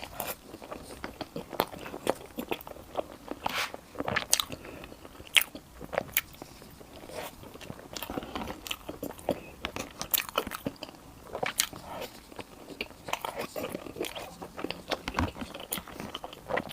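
Close-miked eating: biting and chewing, with irregular sharp crunches and mouth clicks throughout.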